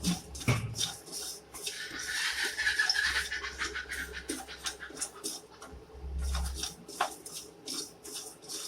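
Spatula stirring and scraping broken wheat (dalia) as it fries in ghee in a pan. Repeated short scrapes, with a longer rustling stretch about two seconds in.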